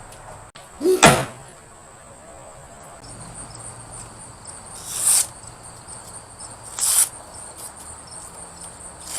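Large forged blade chopping into thick old rope: three sharp strikes, the first about a second in and the loudest. Crickets chirp steadily in the background.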